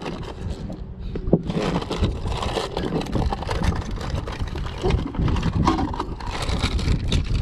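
Rustling, scraping and light knocks from gear being handled and rummaged through in a tackle bag on a boat deck, over a steady low rumble.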